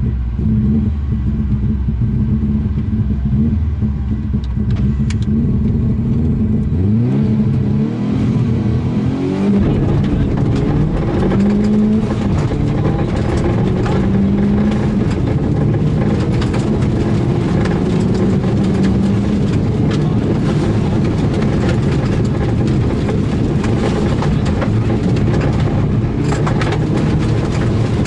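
Turbocharged rally car engine heard from on board. It holds steady revs, then accelerates hard from about seven seconds in, its pitch rising in a series of sweeps through the gears. It then runs flat out at speed, with its turbo boost working again after a repair.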